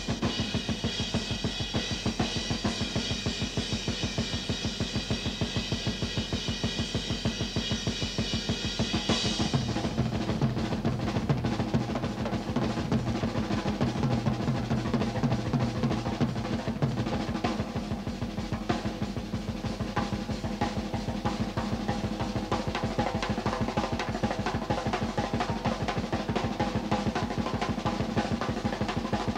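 Rock drum solo on a full drum kit: fast rolls on snare and toms over bass-drum strokes. A ringing high tone sits over the first nine seconds or so.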